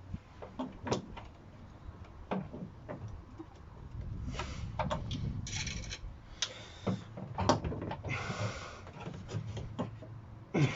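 Irregular metal knocks and clinks with stretches of scraping and rubbing, as a rear suspension arm is worked into place by hand.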